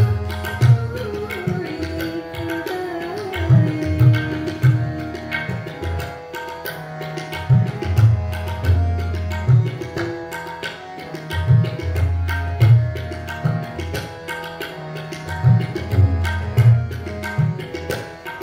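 Tabla and harmonium playing Sikh kirtan. The harmonium holds steady chords while the tabla keeps a rhythmic pattern, its deep bass-drum strokes swelling in a cycle that repeats about every four seconds.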